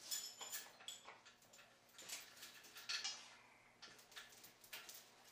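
Steel lifting chain clinking and jingling faintly in irregular small clicks as gloved hands shift it around an engine block hung from an engine hoist.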